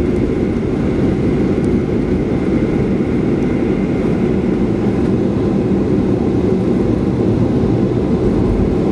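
Steady low rumble inside the cabin of a Boeing 737-800 airliner taxiing after landing.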